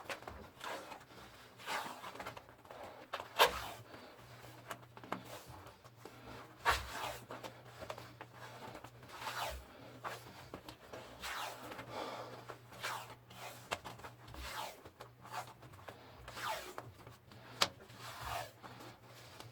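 Repeated hand rubbing or scraping strokes, one every second or two, with a faint steady low hum underneath.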